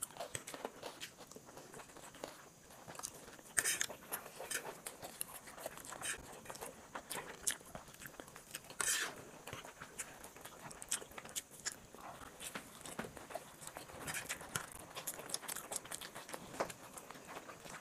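Two people eating chowmein noodles close to the microphone: chewing and slurping, with short clicks of metal forks against plates. It comes as a steady run of small clicks and wet noises, loudest about three and a half and nine seconds in.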